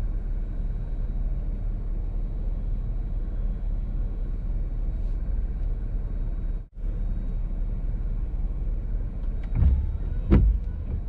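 Steady road and engine noise inside a moving car's cabin, cut by a brief dropout about two thirds through. Near the end come two sudden loud low thumps, half a second apart.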